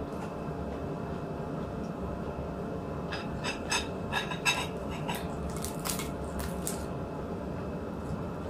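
A person eating close to the microphone: wet chewing and mouth smacks, with a run of short clicks between about three and seven seconds in, over a steady low hum.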